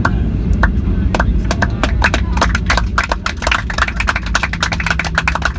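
Boeing 737-8FE cabin on arrival: a steady low rumble, with rapid irregular sharp clicks setting in about a second and a half in and carrying on through.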